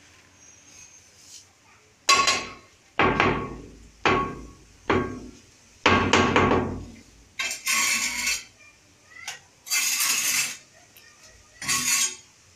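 Freshly laid ceramic wall tiles being struck: five sharp taps about a second apart, each ringing briefly. Then three rasping scrapes across the tile faces.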